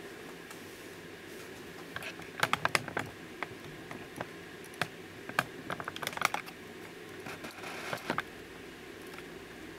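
Light clicks and taps of small plastic doll accessories being set down and moved about on a tabletop. They come in a quick run of clicks about two and a half seconds in, scattered taps between about five and six seconds, and a few more about eight seconds in.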